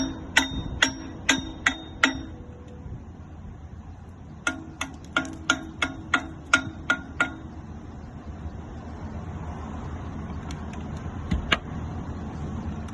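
Hammer blows on steel, each ringing, about two a second in two runs, then a few lighter taps near the end, over a steady low background noise.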